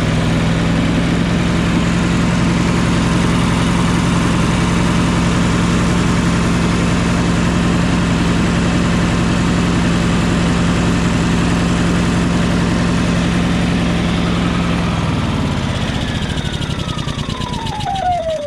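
Yamaha EF4500iSE generator's gasoline engine running steadily, which the owner thinks is running rich, as if the choke were slightly on, and not revving fully up. A few seconds before the end it stops, and the engine winds down with a falling whine.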